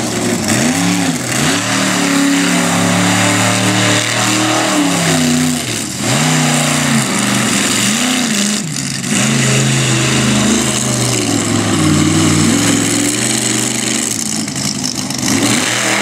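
Monster truck engine revving hard, its pitch rising and falling again and again as the throttle is worked, with a couple of brief lifts off the throttle partway through.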